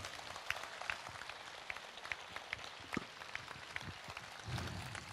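An outdoor audience applauding after a song: thin, scattered clapping in which single claps stand out.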